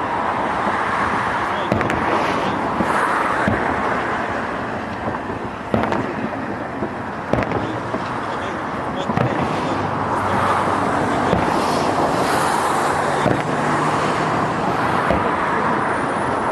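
Fireworks display: sharp bangs of shells bursting at irregular intervals over a continuous crackling rumble.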